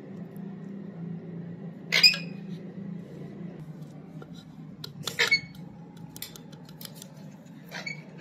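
Clinks and knocks of kitchen handling: a metal utensil on a ceramic plate and a plastic spice container being opened and handled, with two sharp knocks about two and five seconds in and lighter ticks after. A steady low hum underneath.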